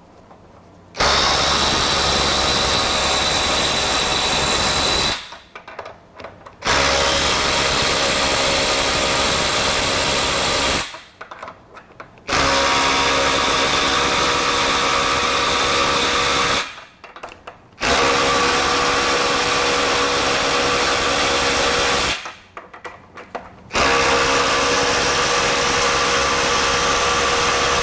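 Ryobi One+ HP brushless compact 3/8-inch impact wrench hammering nuts tight in impact mode: five bursts of about four to five seconds each, with a steady whine over the hammering. Short gaps with light clatter fall between the bursts as it moves from one nut to the next.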